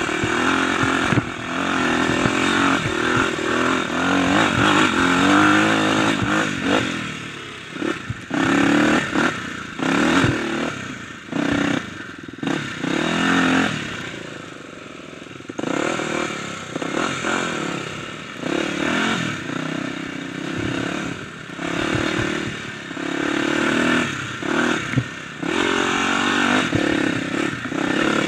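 Kawasaki dirt bike engine revving up and down as it is ridden over a rough trail, with clatter and knocks from the bike hitting bumps. The throttle eases off for a couple of seconds about halfway through, then the engine picks up again.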